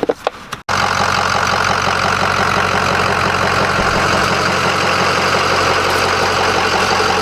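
Big Cam Cummins diesel of a 1981 Peterbilt 359 idling steadily just after being jump-started from dead batteries.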